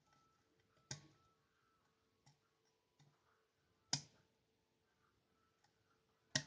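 Sharp metallic clicks of a lock pick working the pin stack of a five-pin Eurospec rim cylinder: three clear clicks, about a second in, near four seconds and right at the end, with two fainter ticks between, over a faint steady hum.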